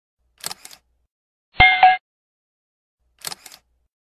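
Sound effects for an animated subscribe button. A computer mouse click, pressed and released, comes about half a second in. The loudest sound is a bright bell-like notification chime struck twice in quick succession just before two seconds, and a second mouse click comes near the end.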